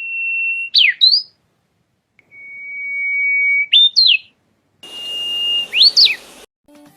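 A bird's whistled call, given three times: each a long, steady, swelling note that ends in a quick up-and-down flourish.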